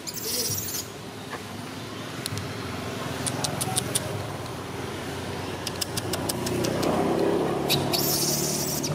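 A motor vehicle engine running, its rumble growing louder about two-thirds of the way through, with a few faint sharp clicks.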